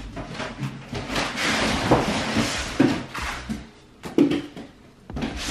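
Cardboard box and packing being torn and pulled apart: a couple of seconds of rustling, ripping noise, with several sharp knocks of cardboard.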